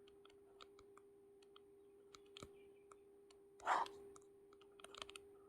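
Faint, irregular clicks of a computer keyboard being typed on, a few per second, over a faint steady hum. A short breath-like rustle comes about two thirds in.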